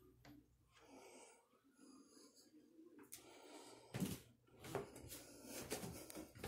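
Faint breathing close to the phone's microphone, with a few bumps and rustles from about four seconds in.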